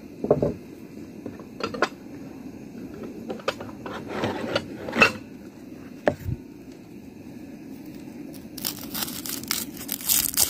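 Dry onion skin being peeled and torn by hand: scattered papery crackles and clicks at first, then a dense run of crackling and tearing near the end.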